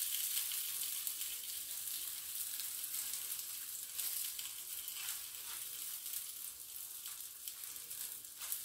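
Butter-brushed stuffed flatbread (Tunisian mtabga) sizzling steadily in a frying pan, with a few faint crackles.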